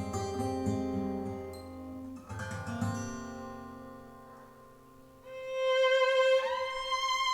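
Instrumental music played back over B&W 702 S2 loudspeakers: plucked acoustic guitar notes that die away, then a violin entering about five seconds in with long held notes, one sliding up in pitch.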